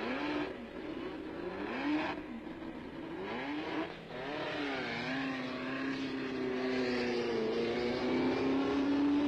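Indy car racing engines revving, with several short rising bursts of pitch. From about five seconds in, one engine holds a long, steady note that climbs slowly as it pulls away.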